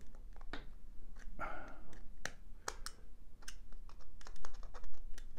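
Needle-nose pliers tightening a small nut on the lens cap inside a 3D-printed dome. Irregular light clicks and ticks of metal tips against the nut and the hard shell.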